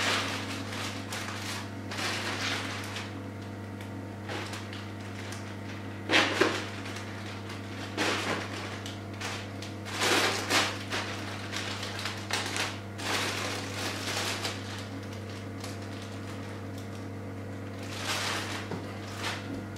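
Plastic zip-lock bags holding ice cubes and rock salt rustling and crinkling in short bursts, several times, as they are handled and sealed, over a steady low hum.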